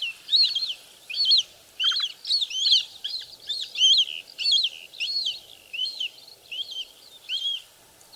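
Pallid harrier calling: a repeated series of short, high, arched notes, about two a second, some coming in quick pairs, with a brief pause near the end.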